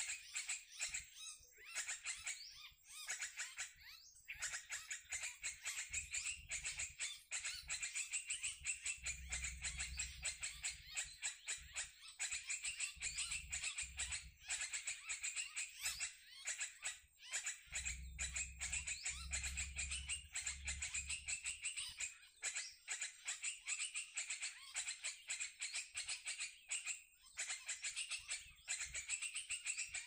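Continuous, dense chattering of many birds: a noisy sooty-headed bulbul (kutilang) calling recording played as a lure to draw small birds into a net.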